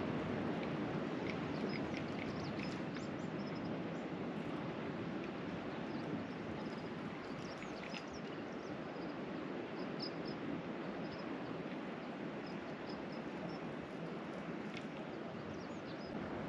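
Steady wash of sea and wind along a rocky shoreline, with scattered short high-pitched chirps through it.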